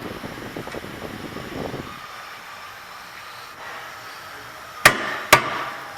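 Two sharp hammer blows on a hand impact driver, about half a second apart near the end, striking to break loose the brake rotor's retaining screws.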